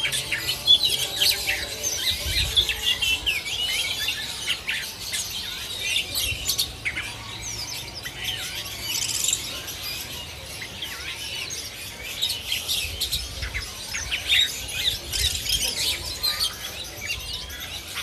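Dense chorus of caged songbirds, among them oriental magpie robins, with many quick high chirps and whistled phrases overlapping without a break. The birds are in full song, like being at the contest pole.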